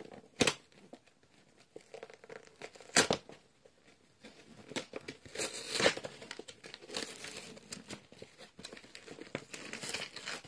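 Thin plastic packaging bag crinkling and crackling as it is handled and pulled open: a couple of sharp crackles in the first few seconds, then denser, continuous crinkling through the second half.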